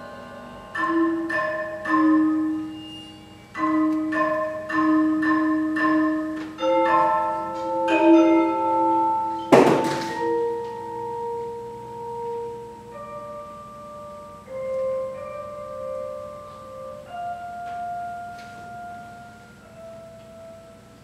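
Music for tuned mallet percussion: groups of repeated ringing chords struck about twice a second, a single loud crash about halfway through, then long held notes ringing out.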